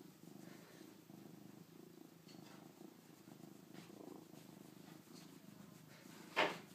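Calico cat purring steadily as it is petted. Near the end comes one short, loud bump.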